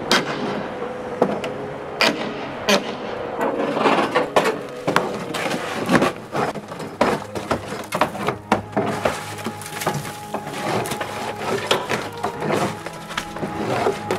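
Wooden boards being pried and broken off an old log cabin during demolition: irregular sharp knocks and cracks of splitting wood, several a second at times. A steady machine hum runs underneath.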